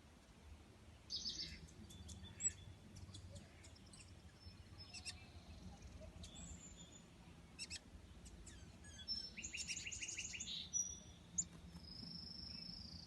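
Small songbird chirping faintly: scattered short high chirps, with a quick run of repeated notes about nine seconds in and a thin held whistle near the end.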